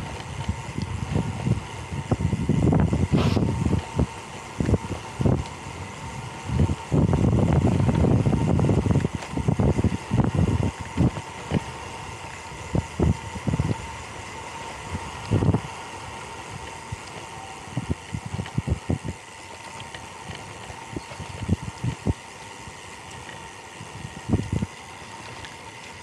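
Wind buffeting the microphone of a camera worn by a cyclist riding a road bike, coming in irregular low gusts that are heaviest early on and ease off about halfway through, over a steady rolling hiss with a faint high whine.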